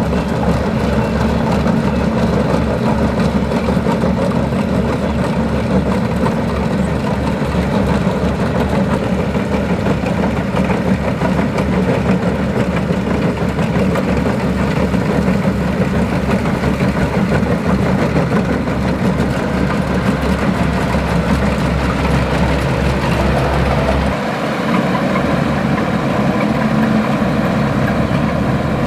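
Kubota combine harvester's diesel engine running steadily. About 24 seconds in, the deepest rumble drops away and a steady higher hum comes in.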